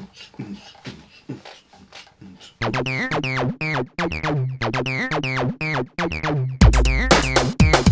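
A faint beat of low thumps, then from about two and a half seconds in an electronic intro theme with synthesizer and drum-machine beat; a heavy bass line comes in near the end.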